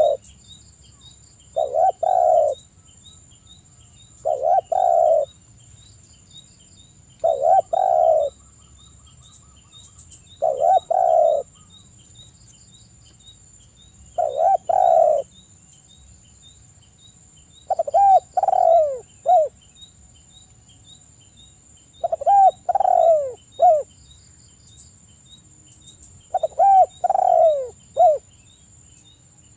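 Spotted dove (tekukur) cooing: its phrase comes again every three to four seconds, eight times, and from about halfway on turns into a longer three-note coo with falling notes. A faint steady high buzz and rapid ticking sit behind it.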